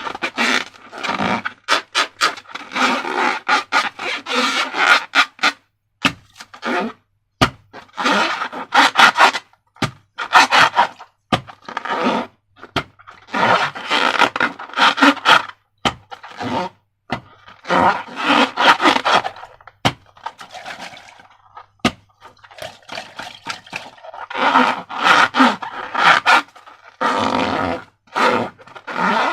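Slime being worked and mixed, scraping and crackling in repeated stretches of one to three seconds, with short gaps and sharp clicks between them.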